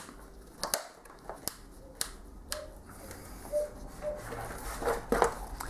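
Plastic rail-mount hooks and locking catch on a Vaude Aqua Back bicycle pannier being worked by hand: several sharp plastic clicks in the first few seconds, then quieter handling of the bag.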